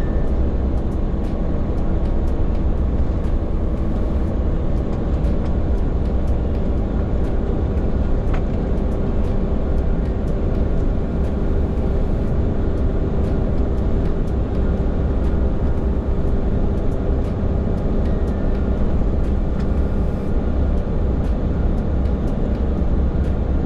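Heavy tractor-trailer truck heard from inside its cab while driving: a steady low engine drone and road noise with a constant hum.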